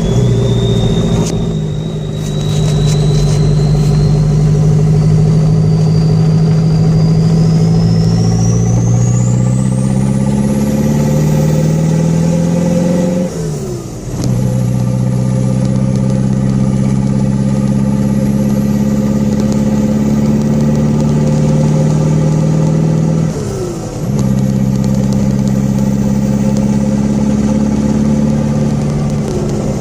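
Turbocharged 2.2-litre Toyota diesel with an open 2.5-inch downpipe pulling under load, its note climbing slowly while a high turbo whistle rises steadily with it as boost builds. The engine note dips and drops in pitch twice, like upshifts, and the whistle falls and then climbs again after each.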